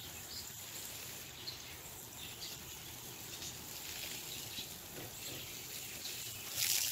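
Faint steady hiss of water spraying from a garden hose onto plants, louder briefly near the end, with insects and a bird calling now and then in the background.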